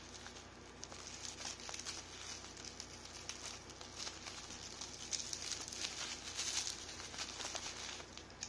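Clear plastic wrap crinkling and crackling as it is pulled and torn off a package by hand, busiest about four to seven seconds in.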